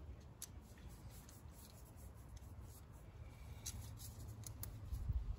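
Faint scraping and a few light clicks of a hand screwdriver turning a screw, over a low rumble that grows strongest near the end.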